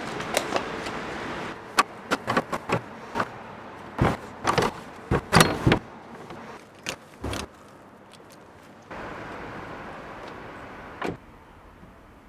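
A run of sharp metallic clicks and rattles from a brass letterbox flap being worked by hand, with keys jangling, as a key on a string is fished for through the letterbox.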